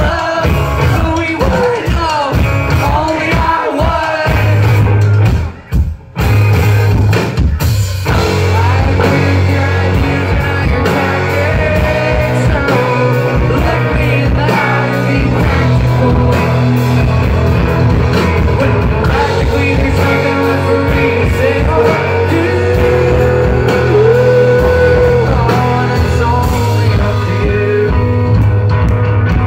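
Indie rock band playing live, with electric guitars, drums and keyboard under a sung melody. The band drops out for a split second about six seconds in, then comes straight back.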